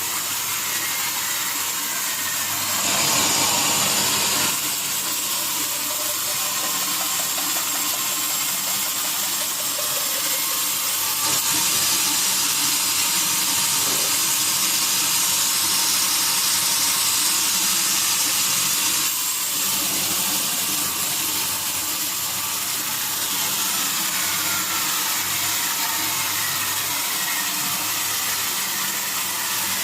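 Sawmill saw machinery running with a steady, hissing high-pitched noise, getting louder for a moment about three seconds in and again for a longer stretch from about eleven to nineteen seconds in.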